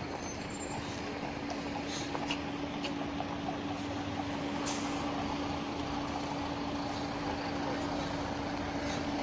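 A double-decker sightseeing bus driving slowly past at close range, its engine giving a steady hum, with a short hiss about halfway through.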